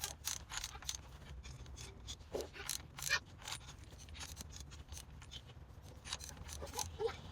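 Scattered metallic clicks and scrapes of hand tools working the crank bolt on an LS 5.3 V8, drawing the new timing-chain crank sprocket onto the crankshaft snout with the old sprocket used as a press.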